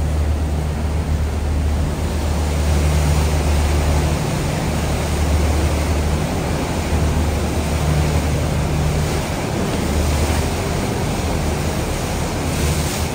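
River cruise boat's engine giving a steady low drone, with wind and water rushing past on the open deck.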